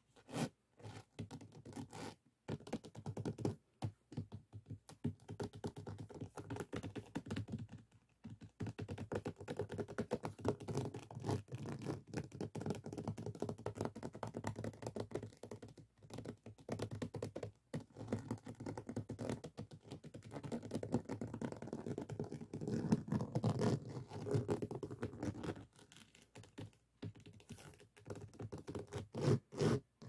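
Fingertips and nails scratching and rubbing across the faceted resin drills of a finished diamond painting, a dense crackly scratching with a few short pauses.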